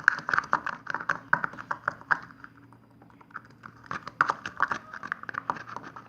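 Homemade glue slime being stirred briskly in a small pot with a stick: rapid clicking and tapping of the stick against the pot. It eases off for a moment partway through, then picks up again.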